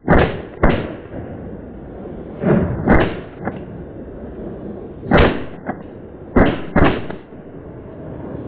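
A series of shotgun shots, about seven sharp bangs, some fired in quick pairs, over a steady background hiss.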